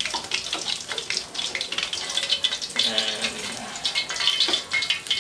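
Hot olive oil sizzling and crackling steadily in a wok around a whole fried grouper as tongs turn and lift the fish.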